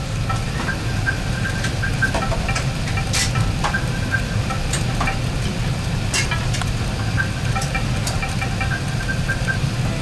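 Steady low cabin rumble inside an Airbus A380-800 taxiing on the ground, with a few faint clicks and rattles.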